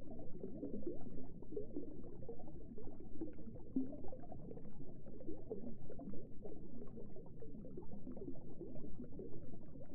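Underwater ambience: muffled, dull water sound with a continual stream of small bubbles.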